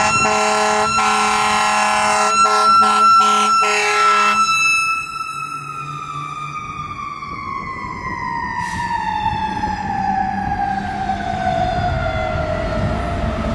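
A fire engine's air horns blast in quick repeated pulses over a mechanical siren held at full pitch. About four and a half seconds in, the horns stop and the siren winds down in one long, slowly falling tone, with the truck's engine running underneath.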